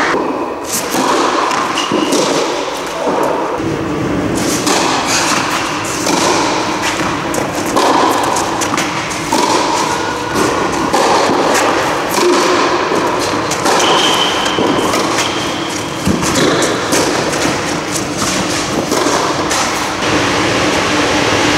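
Tennis racket strikes and tennis-ball bounces on a clay court, heard as scattered thuds, over a steady background hum.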